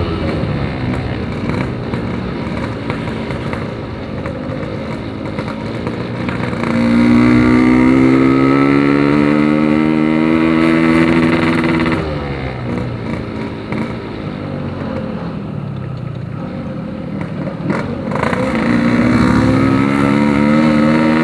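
Yamaha RX-King single-cylinder two-stroke engine running through a Packing Power PK2 aftermarket exhaust, revving up and easing off. The pitch drops at the start, climbs steadily for about five seconds from around seven seconds in, then falls away sharply. It climbs again near the end.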